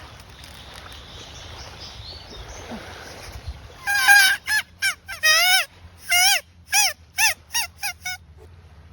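A quick series of about ten loud, goose-like honking calls starting about four seconds in. Each call rises and falls in pitch, some drawn out and some clipped short, over a low steady background hum.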